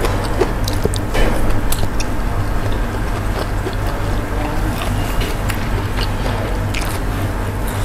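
Close-miked chewing of a mouthful of food, with wet mouth clicks and smacks scattered throughout, over a steady low hum.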